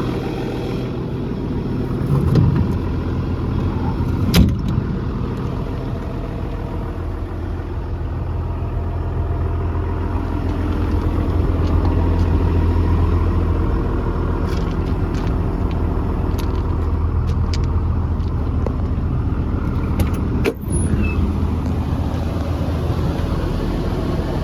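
John Deere 200LC excavator's diesel engine idling steadily, with two sharp knocks, about four seconds in and near the end.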